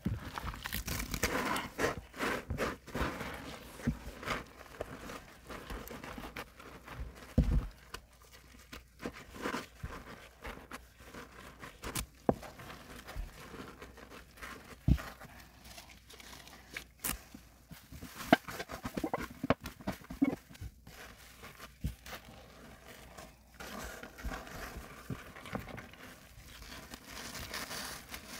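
Wet, soapy sponges dusted with powder being pressed and squeezed by gloved hands: an irregular run of small crackles and squishes.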